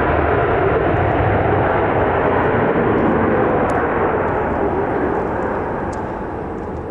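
Jet engines of an Airbus A321neo (Pratt & Whitney PW1100G geared turbofans) roaring loudly as the airliner rolls out on the runway after landing, the roar easing off from about four seconds in.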